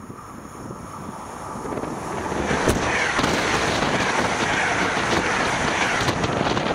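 Passenger train of Intercity coaches passing close by at speed. The rumble of wheels on the rails builds over the first two seconds into a loud, steady roar of wheels and rushing air, with wind buffeting the microphone.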